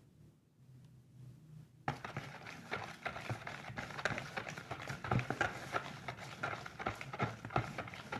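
Slime being squished and played with: a dense, irregular run of small clicks and pops that starts about two seconds in, after a quiet start.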